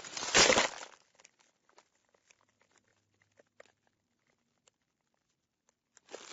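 Broken car windscreen glass debris: a loud crunch about half a second in, then scattered small clicks and tinkles of fragments settling that thin out, and fresh crunching starts again right at the end.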